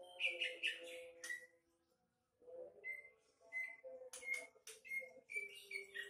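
Female cucak ijo (greater green leafbird) singing: a quick run of short whistled and chattering notes, a pause of about a second near the middle, then more short whistled notes mixed with sharp chips.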